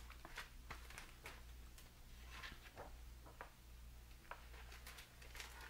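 Near silence: faint taps and soft rustling of a picture book's pages being handled and turned, over a low steady hum.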